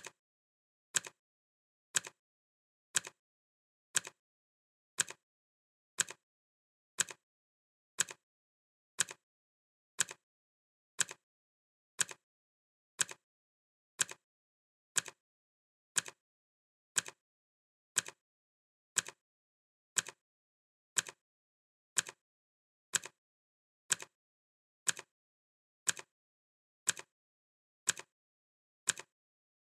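Clock ticking sound effect: one short, sharp tick every second, evenly spaced and all of the same loudness, with silence between the ticks.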